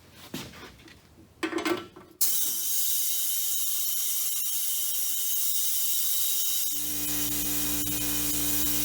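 Compressed air from the shop air compressor starts rushing through the air-driven vacuum pump with a sudden loud, steady hiss, pulling vacuum on the truck's A/C lines. Near the end the air compressor's motor kicks on with a steady low hum under the hiss.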